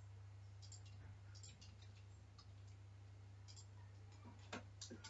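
Faint clicks of a computer mouse and keyboard, scattered through, with one sharper click about four and a half seconds in, over a steady low electrical hum.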